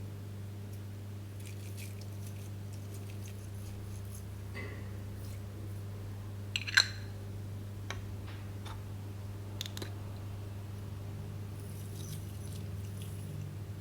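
Hands working slime with bits of a blush palette: sparse soft clicks and light crackles over a steady low hum, with one sharper click about seven seconds in.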